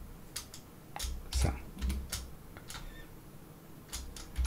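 Typing on a computer keyboard: about a dozen irregular keystroke clicks in short runs with pauses between them.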